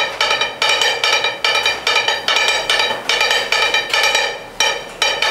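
Kata-kat being made: metal spatula blades rapidly striking and chopping on a large flat iron griddle. A fast, uneven rhythm of ringing metallic clangs, about four a second.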